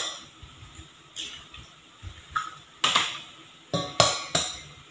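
Sharp knocks and clicks of an egg against a stainless steel mixing bowl. Three quick taps about a third of a second apart near the end are the egg being cracked on the bowl's rim.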